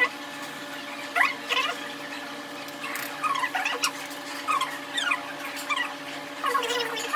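Background music: short squeaky sliding notes, rising and falling, repeat over steady held tones.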